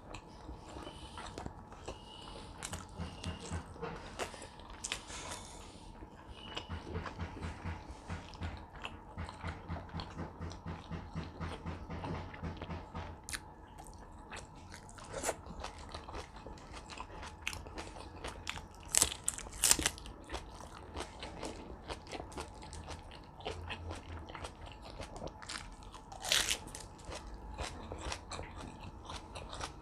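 Close-up eating sounds: chewing in a steady rhythm, with crunchy bites and mouth clicks and a few louder crunches past the halfway mark.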